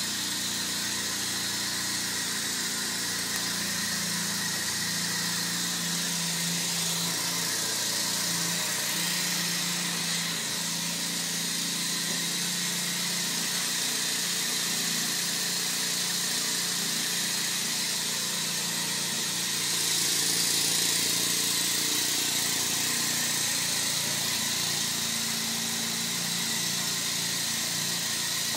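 Machinery running steadily: a constant hiss over a low hum, a little louder about twenty seconds in.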